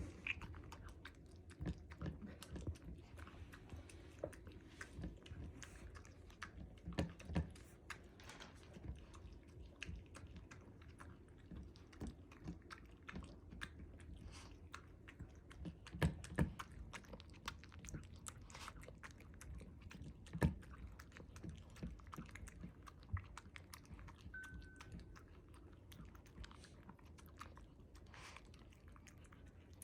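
Miniature Dachshund eating her food: faint, irregular chewing with small crunches and clicks, a few louder bites in the middle.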